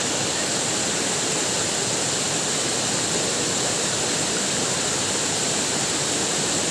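Waterfall: water falling steadily, an even, continuous noise with no change in level.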